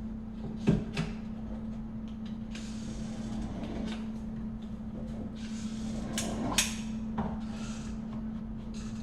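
A few sharp knocks and clatters, two close together about a second in and two more near the end of the middle, with scraping and handling noises between them, over a steady low hum.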